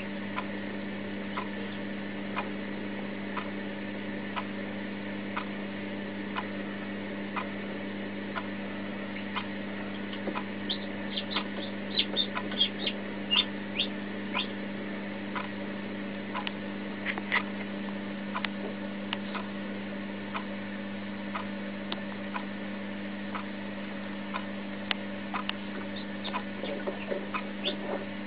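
Short, high peeps from a newly hatching Marans chick, scattered and bunched together about a third of the way in, over a steady hum and a regular soft ticking about one and a half times a second.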